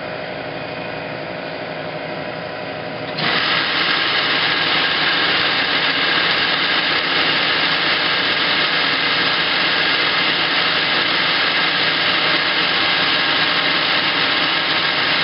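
Metal lathe taking a turning pass on a small metal stud. A steady machine noise jumps suddenly about three seconds in to a louder, steady running sound with a few steady tones, held for the rest of the pass.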